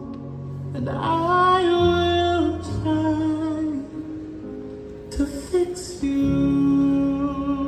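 A slow song playing, with a sung, likely female, vocal line of long held notes over sustained low notes. Two sharp knocks come about five seconds in.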